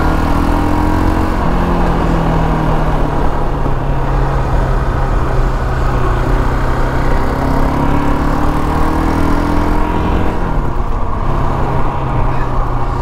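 KTM 525 XC quad's single-cylinder four-stroke engine running under way at a steady cruising pace. Its pitch steps up about a second and a half in, dips briefly about ten and a half seconds in, then picks up again.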